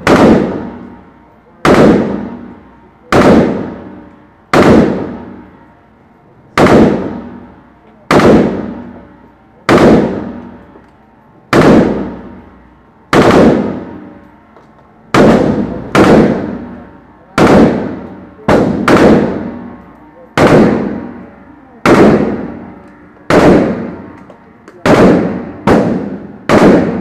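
AK-47 rifle shots, about one every second and a half, each a sharp crack that fades out over a second or more. The shots echo off the walls of an indoor range.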